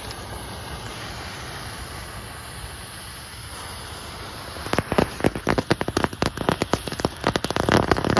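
Small novelty 'lightning bug' fireworks crackling: a rapid, irregular string of sharp pops that starts about five seconds in and keeps going.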